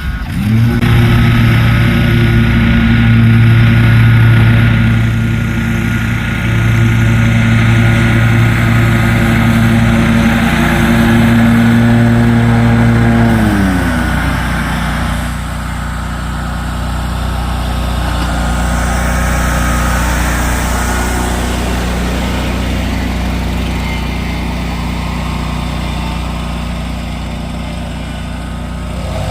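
Commercial mower's engine running steadily at high speed, then throttled down about 14 seconds in and running on at a lower, steady speed.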